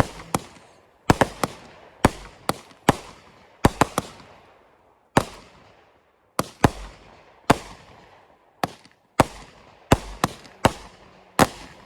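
Consumer fireworks going off: a rapid, irregular string of sharp bangs, many in quick pairs or clusters, each trailing off in a short fading tail.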